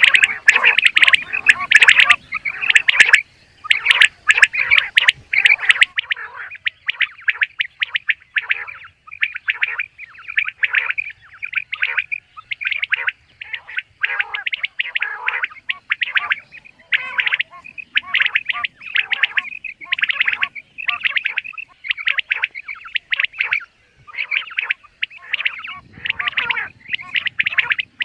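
Common quail calling over and over in short bursts, about one a second, denser in the first few seconds. A few sharp clicks sound among the calls near the start.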